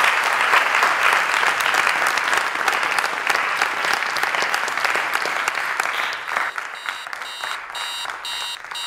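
A group of people applauding, the clapping dying away about six seconds in. Near the end an electronic alarm starts beeping, about two high beeps a second.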